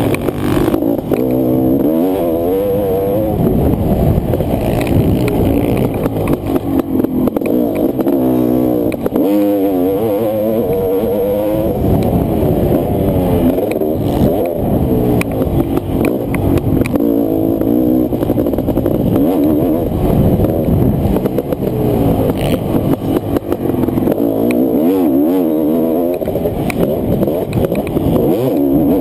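Honda CR500's 491 cc two-stroke single-cylinder engine under race throttle, its pitch climbing and falling again and again as it is revved hard, shifted and backed off round a motocross track.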